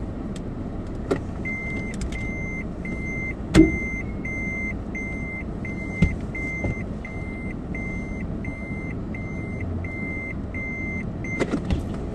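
Electronic warning beeper inside a car's cabin, sounding a steady series of short, even beeps, a little under two a second, for about ten seconds over the low hum of the slowly moving car. There is a sharp knock about three and a half seconds in.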